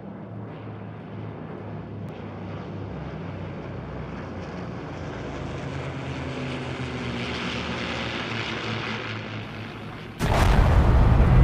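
Propeller aircraft engines droning, growing steadily louder and brighter for about ten seconds, then a sudden much louder rumble that swamps the drone for the last second or so.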